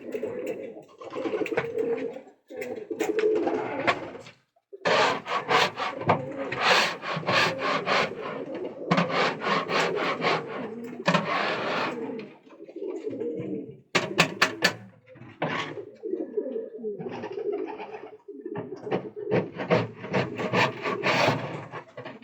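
Pigeons cooing in a loft, a low repeated coo, broken by several bouts of rapid rustling and scratching lasting a few seconds each.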